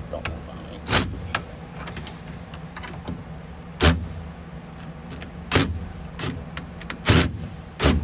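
Five sharp, separate knocks and clicks from handling a cordless drill with a nut-driver bit against a refrigerator's metal lower hinge bracket and its fittings.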